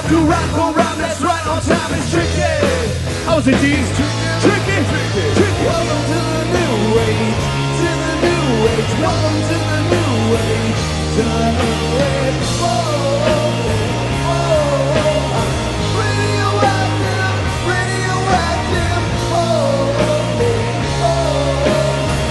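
Rock band playing: electric guitar, bass guitar and drum kit, with a male lead vocalist singing over them.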